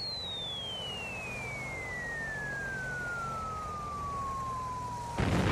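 Whistle of a falling bomb: one long tone sliding steadily down in pitch over a steady low rumble, cut off about five seconds in by the loud blast of an explosion.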